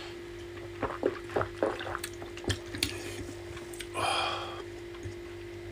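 A few light knocks and clicks of a bottle or cup being handled, then a brief pour of liquid about four seconds in, over a steady low electrical hum.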